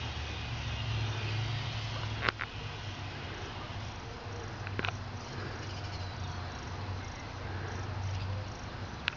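Diesel engine of a standing Metra commuter train idling, a low steady rumble that wavers slightly in strength, with two brief sharp clicks about two and five seconds in.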